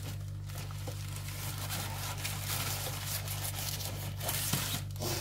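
Plastic packaging rustling and crinkling as items are handled, busier from about a second and a half in, over a steady low hum.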